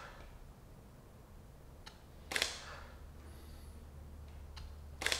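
Three sharp single clicks about two and a half seconds apart, each with a faint tick just before it, typical of a click-type torque wrench breaking over as the valve cover bolts on a Subaru EJ20 engine are brought to torque. A low steady hum runs underneath.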